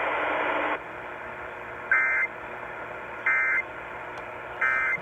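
Emergency Alert System end-of-message data bursts over the radio: three short, identical two-tone digital chirps about a second and a half apart, marking the end of the flash flood warning. A brief stretch of radio hiss comes before them.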